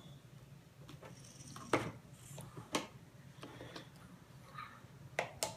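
Plastic toy pieces being handled and fitted together: a few sharp clicks and knocks, the two clearest about a second apart, over a low steady room hum.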